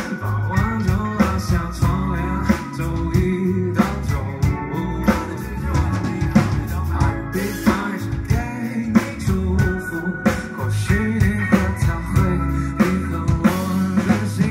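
Live band playing a song: electric guitars, bass and drum kit, with a steady beat of drum hits.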